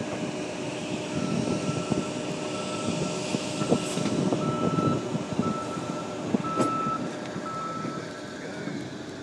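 A diesel locomotive moving along the track, with a steady rumble of engine and wheels and a few sharp knocks. A high-pitched beep repeats over and over from about a second in until near the end.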